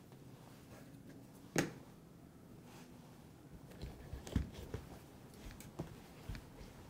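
Quiet handling sounds of hand shoe polishing: a few light clicks and taps, the sharpest about one and a half seconds in and a small cluster around four seconds in.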